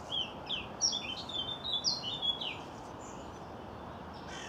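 Garden warbler singing: a fast, rambling warble of quick varied high notes that breaks off about two and a half seconds in.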